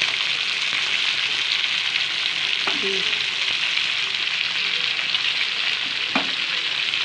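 Freshly added chopped onions and chicken sizzling steadily in hot oil in a kadai, with two light knocks of the stirring spoon against the pan.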